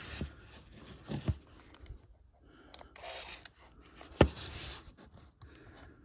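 Hands handling a Canon Sure Shot 80 Tele plastic compact camera: fingers rubbing and scraping on its body, with a few light clicks and one sharp knock about four seconds in.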